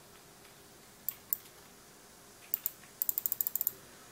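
Computer mouse button clicking: two clicks about a second in, two more at about two and a half seconds, then a quick run of about ten clicks, as if the button is being pressed again and again.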